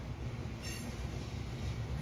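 Low, steady rumble of a train out of sight, with a brief high metallic squeal of wheels on rail less than a second in.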